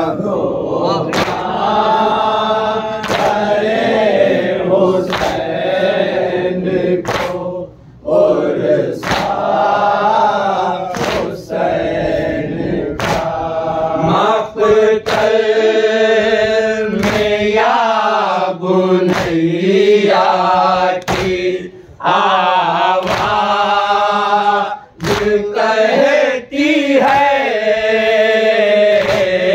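Men chanting an Urdu noha, a lament for Husain, in unison with a lead reciter, with rhythmic matam (hands striking chests) about once a second.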